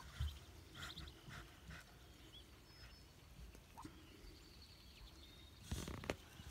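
Faint, scattered peeps from newly hatched Muscovy ducklings tucked under the brooding hen, with a brief louder rustle about six seconds in.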